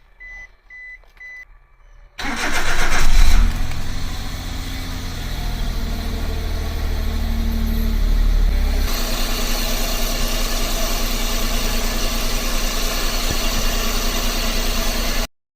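Suzuki Every van's (DA64V) three-cylinder engine: a few short warning beeps, then the engine cranks and catches about two seconds in and settles to a steady idle. About nine seconds in the sound changes to a harsher, brighter noise with less low hum; this is the abnormal noise the uploader puts down to the air-conditioning compressor.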